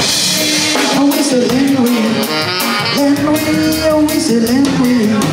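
Live band playing a song: a drum kit keeps a steady beat with cymbals under a melody line.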